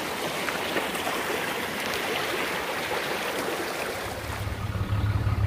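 Small creek flowing over rocks, a steady rushing of water. About four seconds in it cuts off abruptly to the low, steady hum of a truck engine idling.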